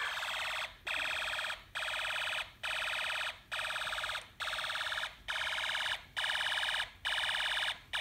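Snap Circuits noise-activated burglar alarm sounding through its small speaker: a high, buzzing electronic alarm tone repeating in pulses a little under a second long, about nine in all. It has been set off by a loud noise picked up by the whistle chip.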